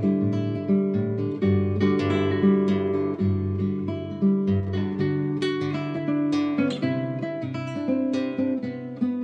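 Background music: solo acoustic guitar, played with a steady stream of plucked and strummed notes.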